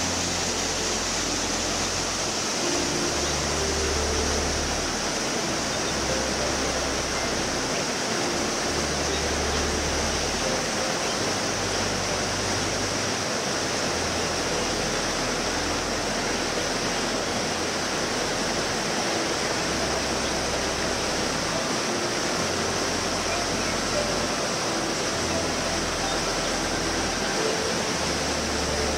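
Waterfall and stream water rushing steadily over rocks into a pool, a constant full hiss of white water.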